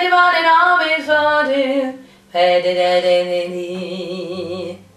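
A woman singing a jazz melody without words. A run of short moving notes breaks off about two seconds in, and a second phrase ends on a held note with vibrato.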